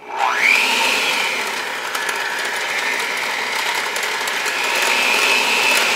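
Cuisinart electric hand mixer starting up with a quickly rising whine, then running steadily, its beaters churning sugar into a wet banana and butter batter in a glass bowl.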